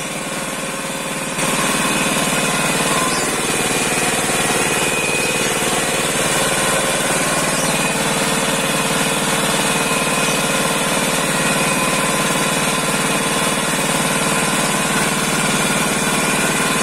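FFC-15 grinding mill, belt-driven by a small engine, running steadily while it grinds coffee beans mixed with corn. It grows louder about a second and a half in, then holds an even level.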